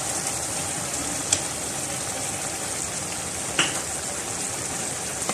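Chicken cooking in tomato liquid in a large metal pot on the stove, a steady sizzle and bubble, with two short clicks about a second and a half and three and a half seconds in.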